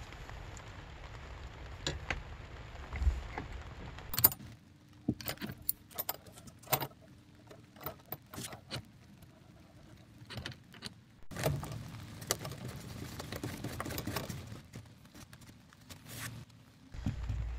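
Scattered small clicks, knocks and metallic clinks from hands working a mini-split refrigerant line set and its flare-nut fittings at a ceiling cassette head unit.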